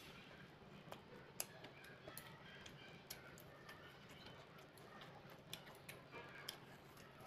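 Quiet close-miked eating sounds: scattered soft clicks and smacks of chewing and light taps of metal chopsticks, over a faint low hum.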